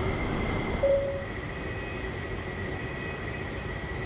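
Steady rumbling hum of a busy airport terminal hall, with a faint steady high tone and a short tone blip about a second in.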